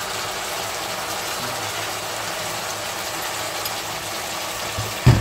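Onions, peppers and fish sizzling in oil in a frying pan: a steady hiss. Two dull thumps near the end.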